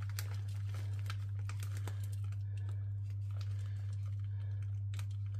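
Ground walnuts poured from a crinkling packet into a Thermomix's steel mixing bowl: irregular light ticks and rustles, busiest in the first two seconds and again near the end. A steady low hum runs underneath.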